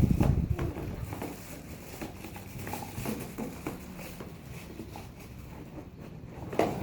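Blender parts and packaging being handled: a heavy knock at the start, then scattered light clicks, taps and rustling, with another knock near the end.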